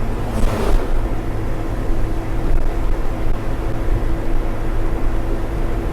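Truck engine running steadily on the move, heard from inside the cab as a low drone, with a brief hiss about half a second in.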